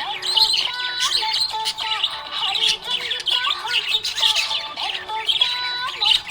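Budgerigar chirping and warbling in quick, busy trills, over a simple instrumental melody.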